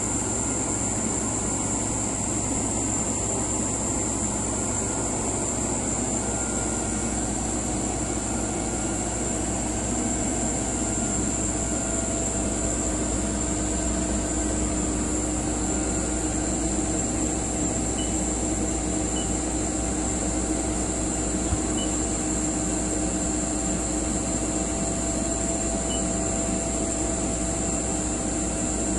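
Machinery running steadily: a constant hum with a high-pitched whine and a few faint ticks.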